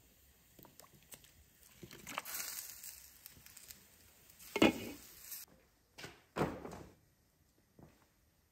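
Peeled whole onions tumbling off a wooden board into a pot of simmering cow-leg broth. About halfway through, a glass pot lid clanks down onto the pot's rim, the loudest sound. Two dull knocks follow about a second and a half later.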